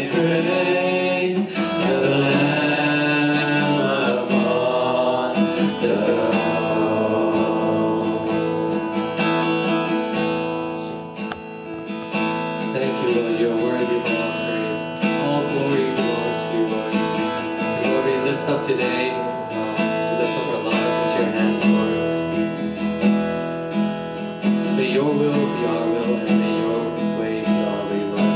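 Strummed acoustic guitar accompanying a man singing a worship song.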